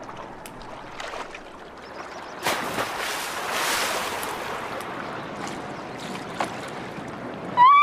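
A diver hits the pool water with a splash about two and a half seconds in, over a steady hiss of outdoor water and wind. A raised voice calls out at the very end.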